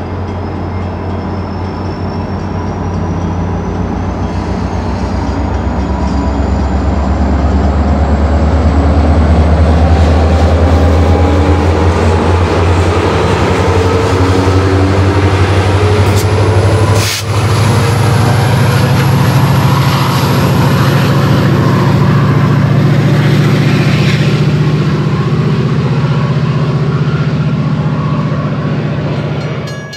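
Rail Runner Express commuter train departing, its MP36PH diesel locomotive passing close while pushing bilevel coaches: a loud, steady diesel engine under power that builds to a peak about a third of the way in and stays up, with a thin whine rising steadily in pitch throughout.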